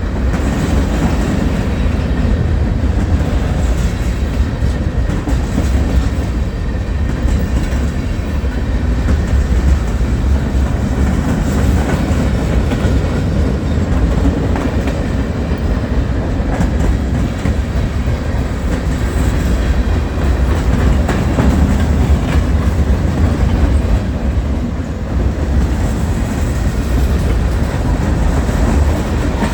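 A train running steadily, with a continuous low rumble of wheels on the rails.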